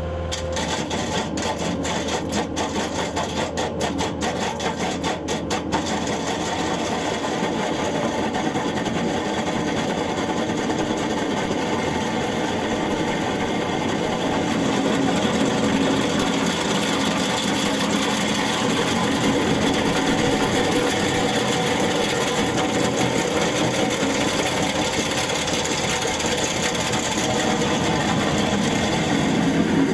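Machinery running, with a rapid clatter of clicks for the first six seconds or so, then a steady, even drone.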